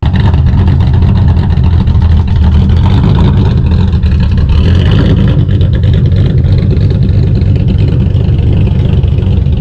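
A car engine running loudly and steadily, cutting in abruptly.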